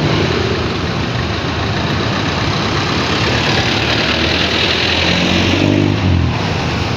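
Steady rush of road and wind noise from riding in traffic, with a motor vehicle engine running. A louder pitched engine sound rises from about five seconds in and stops about a second later.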